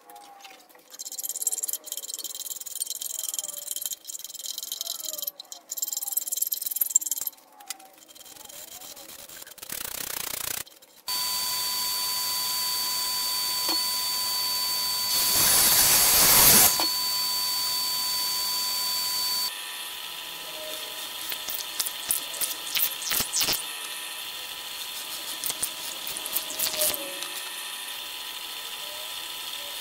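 Workshop tool sounds in sequence. First comes intermittent scraping of a hand tool on a hardwood edge. From about a third of the way in, a sliding mitre saw's motor and dust extraction run with a steady whine, louder for a moment about halfway through as the blade cuts. After that a pillar drill runs more quietly, with light clicks, as it bores into the wood.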